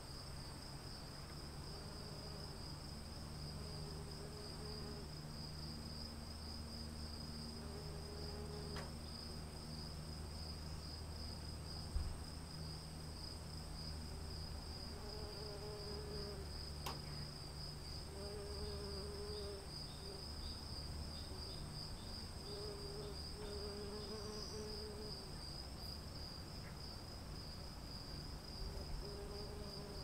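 A steady, high, pulsing insect chorus over a low steady rumble, with a short low call recurring every couple of seconds. A single sharp thump about twelve seconds in.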